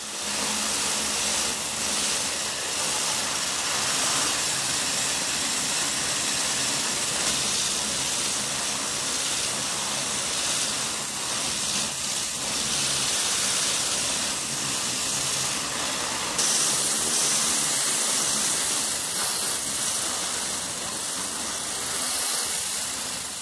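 High-pressure water jet from a hydro-blasting lance hitting a metal motorcycle wheel rim, a steady loud hiss as it strips the gold paint down to the primer. The hiss turns sharper and brighter about sixteen seconds in.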